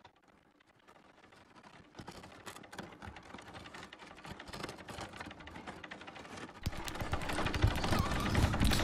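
Rapid clattering of a hamster running in a wooden-runged exercise wheel. It fades in and grows steadily louder, with a sudden step up in loudness about two-thirds of the way through.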